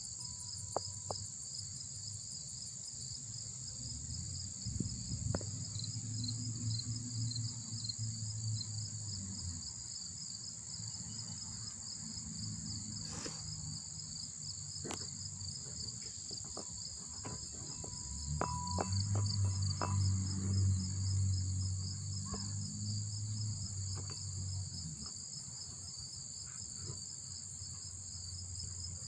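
Background chorus of insects, cricket-like, chirping in a steady fast trill throughout. A low hum swells and fades twice, loudest about two-thirds of the way in.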